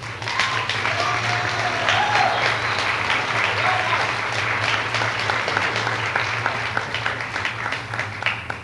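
Audience applauding steadily, with a few voices calling out in the first few seconds; the clapping thins out near the end.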